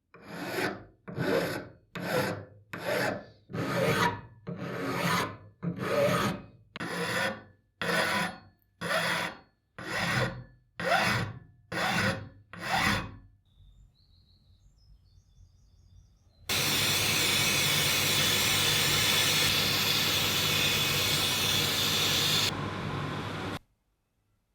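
About fourteen hand-file strokes, roughly one a second, each a rasp that swells and fades. After a short pause a loud steady machine noise runs for about seven seconds and cuts off abruptly.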